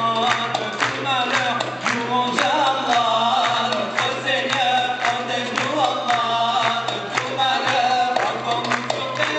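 Men's voices singing a nasheed to a wavering, ornamented melody, accompanied by a hand drum beating a steady rhythm.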